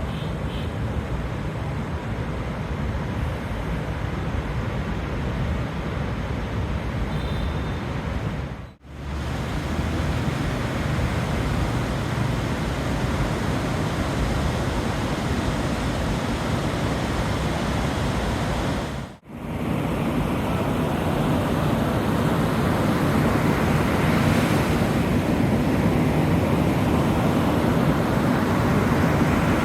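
Sea surf washing onto the beach, with wind buffeting the microphone. The sound drops out for a moment twice, and the surf swells louder near the end.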